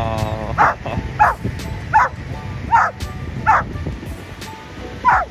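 A dog barking repeatedly: five sharp barks about three-quarters of a second apart, each dropping in pitch, then a pause and one more bark near the end.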